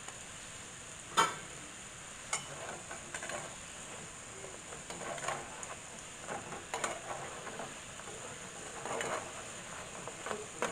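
Pilipit (twisted glutinous rice dough) sizzling in melted brown sugar in a nonstick frying pan, stirred and turned with a wooden spatula and a perforated metal skimmer to coat them. Steady hiss with scrapes and utensil knocks on the pan; the sharpest knock comes about a second in.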